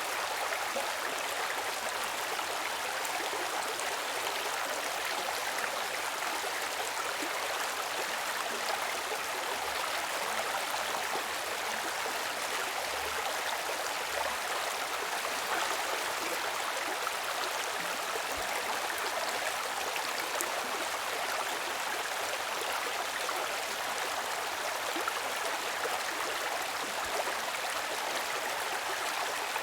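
Stream water rushing and splashing steadily over rocks, an even, unbroken wash of sound.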